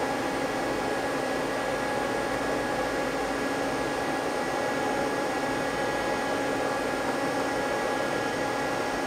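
Steady fan-like whir and electrical hum with a few faint steady tones, unchanging throughout, with no distinct clicks or knocks.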